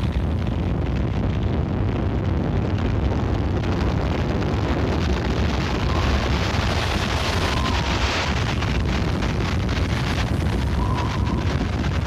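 Tornado wind hitting the microphone: a loud, steady rushing noise with a deep rumble underneath.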